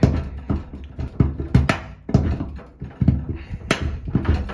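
Transit bolt and its plastic spacer being shaken left and right in the back panel of a Whirlpool FFB 8458 washing machine to work them loose: an uneven run of knocks and rattles against the hollow panel, about three a second.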